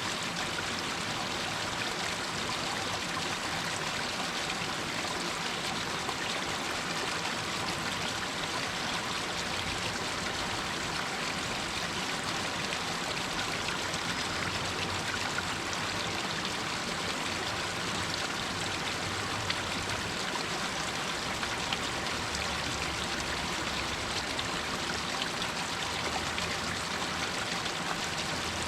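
Water running and splashing down over rocks in a small hillside stream, a steady rushing with light trickling.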